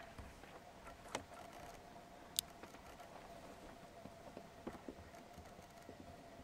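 Quiet background with a faint steady hum and scattered small clicks; the sharpest is a single high tick about two and a half seconds in.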